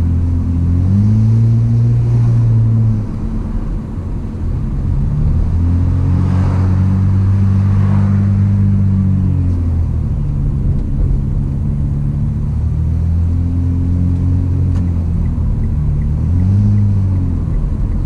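Hyundai Azera V6 engine with its rear mufflers removed, heard from inside the car under acceleration. Its pitch climbs and drops back three times: once near the start, once in the middle and once near the end, with a steadier stretch in between.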